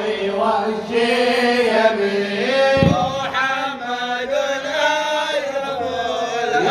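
Male voices chanting a devotional Arabic mawlid recitation in long, melodic, held phrases. A single low thump sounds about three seconds in.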